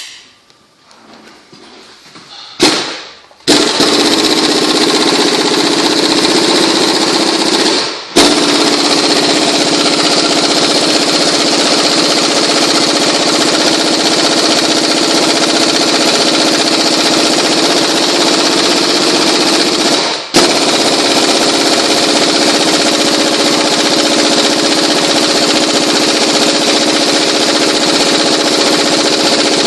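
Pneumatic air tool hammering in a loud, continuous rattle on a car's front suspension. It starts a few seconds in and breaks off briefly twice as the trigger is let go and pulled again, working at a part that is not coming loose.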